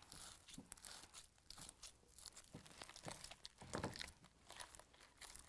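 Faint, irregular sticky crackling of glue-and-borax slime being mixed and pulled by hand in a bowl.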